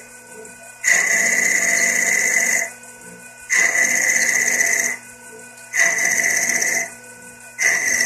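CNC lathe running its turning cycle: a loud high-pitched whine comes on four times, each spell lasting one to two seconds with about a second of quieter spindle running between, as the tool takes successive passes along the spinning workpiece.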